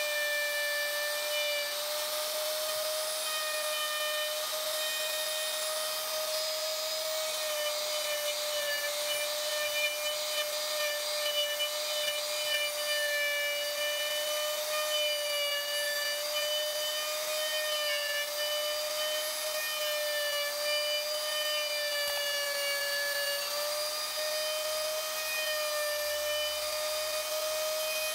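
Small electric router running at speed with a fine carving bit, a steady high whine over a hiss, as the bit cuts a relief pattern into a wooden board.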